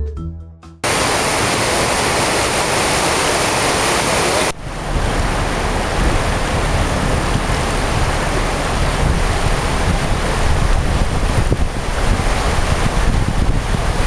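Floodwater rushing across a submerged road, a loud steady rush of water mixed with wind buffeting the microphone. The sound cuts abruptly about a second in and again about four and a half seconds in, with a low rumble after the second cut.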